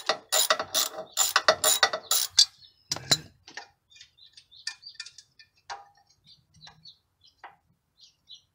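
Socket wrench ratchet clicking in quick strokes, about four a second, as it backs off a 10 mm nut holding the air filter housing to the carburetor. About three seconds in there is a single louder clack, followed by scattered faint small clicks.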